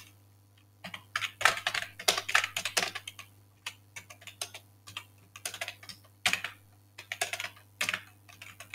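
Typing on a computer keyboard: irregular runs of keystroke clicks with short pauses between them, starting about a second in.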